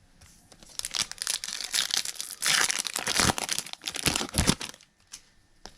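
Plastic wrapper of a Topps Holiday Baseball card pack crinkling and tearing as it is ripped open and handled, a dense run of crackles that stops about five seconds in.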